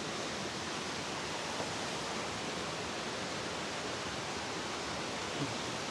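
Steady rushing of river water, an even hiss with no breaks, with two faint knocks about a second and a half in and near the end.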